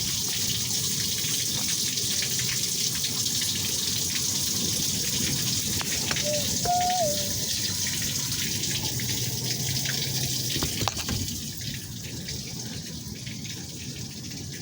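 Water running steadily into a street storm drain, a little quieter after about eleven seconds.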